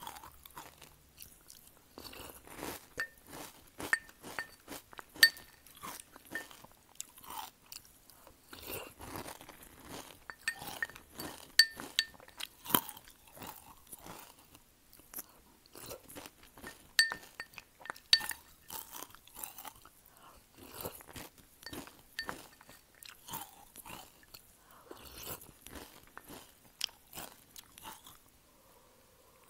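Close-miked crunching and chewing of crunchy cereal in milk, a steady run of sharp, irregular crackles as mouthful after mouthful is bitten and chewed.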